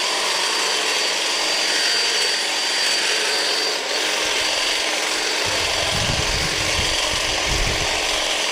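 Atlas 40-volt cordless hedge trimmer running steadily, its blades cutting through shrub branches. A thin high whine sounds for the first four seconds or so, and a low rumble joins in from about halfway.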